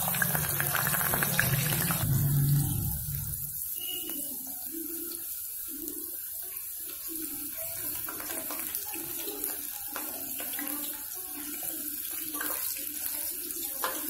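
Boiled potato slices frying in hot oil in a steel pan: a steady sizzle and bubbling, fuller and louder for the first few seconds. A few light clicks of a slotted spoon come near the end.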